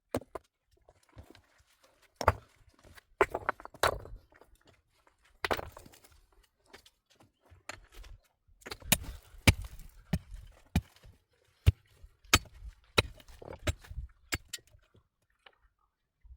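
A series of irregular knocks and thuds, with short stretches of scraping and rustling between them.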